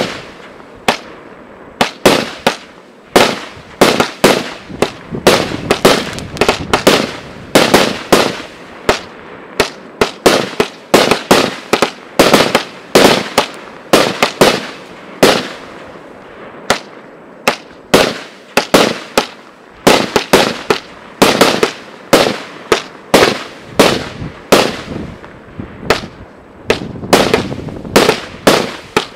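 Category 3 consumer firework compound, a multi-shot cake set, firing a rapid string of shots. Each shot is a sharp bang, and they come at uneven spacing, roughly one or two a second.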